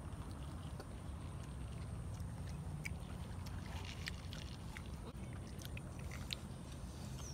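Two people chewing fried fish balls, with scattered small mouth clicks, over a steady low rumble.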